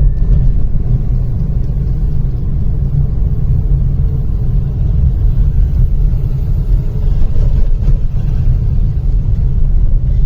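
Steady low rumble of a vehicle travelling along a road, with road and wind noise and no clear engine note.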